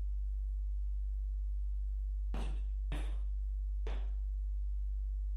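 Steady low electrical hum, with three brief faint sounds about two and a half, three and four seconds in.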